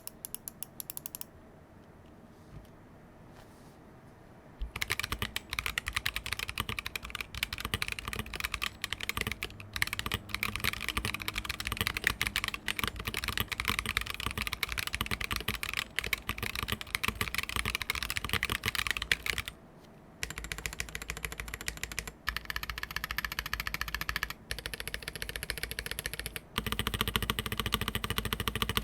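Fast typing on a Saka68 keyboard with an aluminium case and plate, CNC-machined aluminium keycaps and stock Boba U4T tactile switches, giving quick, sharp clacks. A few keystrokes, a pause of about three seconds, then steady rapid typing broken by a few short stops.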